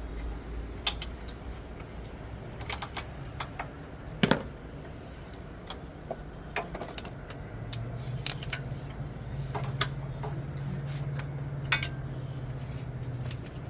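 Hand tools clicking and clinking on metal parts in a car's engine bay, irregular light taps with a louder knock about four seconds in. A steady low hum comes in about halfway through.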